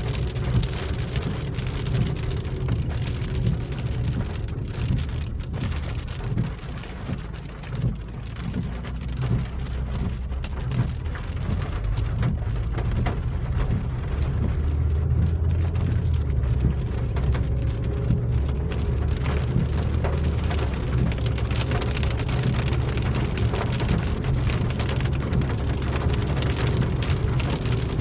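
Rain pattering on a car's windshield and roof, heard from inside the cabin, with many scattered ticks of drops. Underneath is a steady low rumble of the engine and tyres from the moving car.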